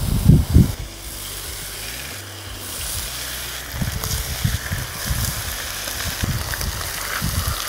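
Bacon sizzling on a hot griddle over charcoal as raw strips are laid down one after another, the hiss growing a little about halfway through. Low irregular thumps of handling run under it near the start and again in the second half.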